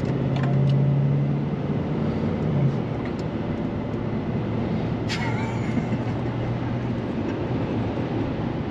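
Engine and road noise inside a moving vehicle, a steady low rumble with an engine hum, and a short sharp click about five seconds in.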